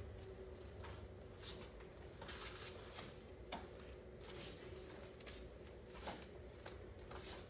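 Faint, quick swishes and snaps of cotton martial-arts uniforms, with light steps on foam mats, as two students perform the Chon-Ji pattern's blocks and punches. About eight short swishes come at uneven intervals, over a faint steady hum.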